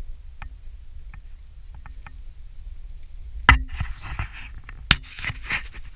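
Wind rumbling on the microphone, with a few light clicks and then two sharp knocks about a second and a half apart, each followed by a short rustling hiss.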